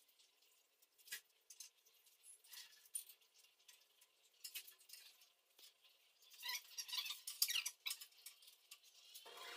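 Faint scattered clicks and light scratching of hands working narrow ceramic edge tiles and tape along a counter edge, with a denser run of scratchy rasps about six to eight seconds in.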